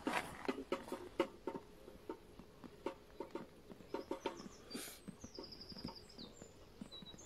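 Handling noise from a carp weigh sling being hooked onto a scale: irregular knocks, clatters and rustles of its frame and fabric. A bird gives a short, rapid high trill about five seconds in.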